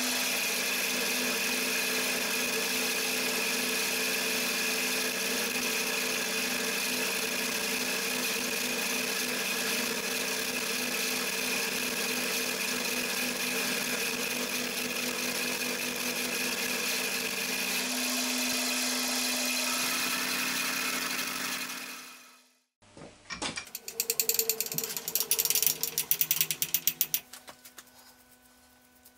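Milling machine with an end mill cutting a stainless steel plate: a steady machining noise with the spindle's hum. About 22 seconds in it cuts off abruptly. It comes back as a harsher cut with rapid rattling clicks for a few seconds, then the spindle runs on quietly.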